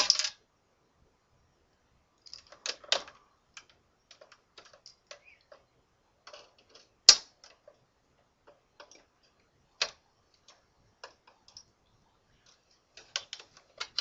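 Irregular plastic clicks and taps as the Xbox 360's side vent panel is worked loose, its clips punched out through the vent holes with a small tool. A single sharp snap about seven seconds in is the loudest.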